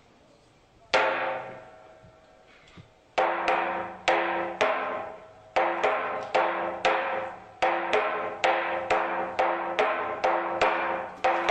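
Wooden toaca (semantron), a long suspended wooden beam, struck with a wooden mallet. There is a single knock about a second in, then from about three seconds in a quick, uneven rhythm of knocks that does not let up. Each knock rings briefly at the same few pitches.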